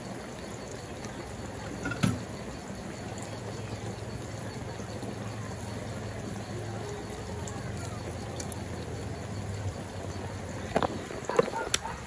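Pork and onions simmering in sauce in a metal pan, a steady bubbling hiss. A single knock about two seconds in, and a quick run of metal clicks near the end as tongs stir against the pan.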